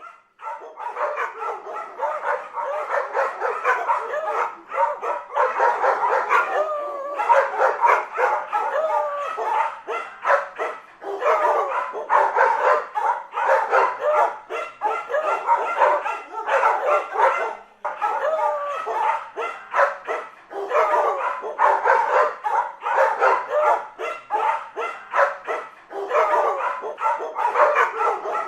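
A dog barking and yipping in quick runs, pitch wavering, with short pauses every few seconds.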